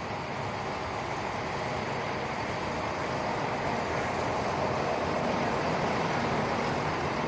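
Diesel railcar pulling into a station platform and passing close by, its engine and wheels a steady noise that grows slowly louder as it draws near.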